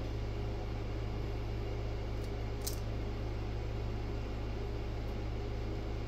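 Steady low electrical hum with a fan-like hiss, even in level throughout. A faint light click comes about two and a half seconds in as a wire stripper is worked on speaker wire.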